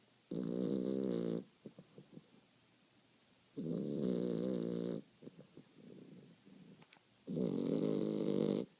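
A sleeper snoring: three loud snores, each a little over a second long, about three and a half seconds apart, with faint soft sounds of breath between them.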